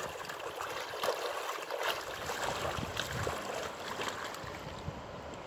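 Shallow river water running over stones, with a landed chinook salmon splashing at the water's edge a few times.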